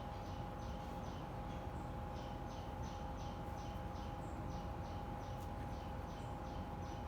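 High, rapid chirping repeated about five times a second in short runs with brief gaps, over a steady two-note hum and constant background noise.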